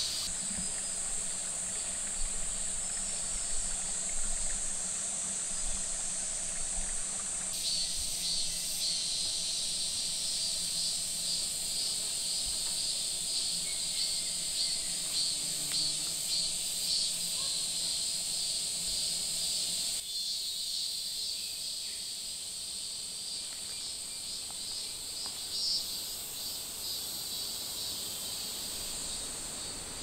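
Forest insects chirring in a steady high-pitched chorus, with a second, pulsing layer of chirps beneath it. The mix changes abruptly twice.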